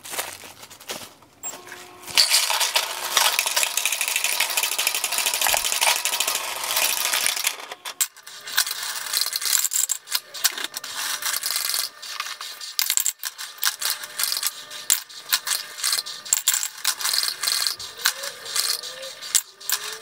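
Cassida C800 coin counter-sorter running a batch of coins through. After about two seconds a dense, fast rattle of coins sets in for several seconds, then thins to a sparser clatter and clicking as the last coins pass through and are counted.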